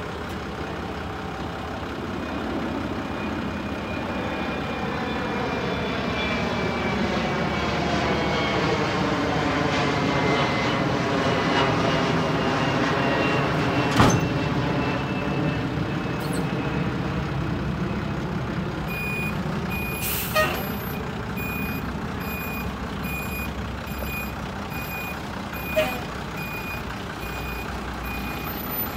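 1992 Ford F-700 dump truck running while its dump bed is let down. The engine pitch rises for about ten seconds and then eases off, and there is a sharp clank about halfway through as the bed comes to rest on the frame. From about two-thirds of the way in, a backup alarm beeps steadily about once a second.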